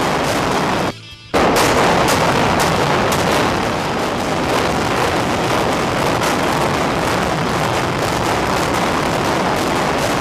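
Veterans Stadium implosion heard close up: a continuous loud roar of collapsing concrete with repeated sharp cracks of the demolition charges. The sound cuts out briefly about a second in.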